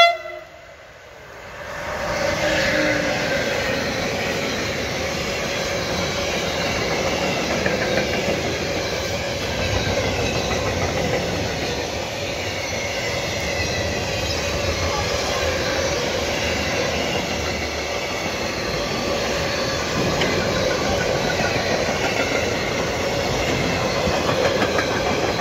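A short horn note from the electric locomotive right at the start. Then, from about a second and a half in, a freight train of gas tank wagons rolls past close by: a steady loud rush of wheels on the rails, with a steady ringing tone running underneath.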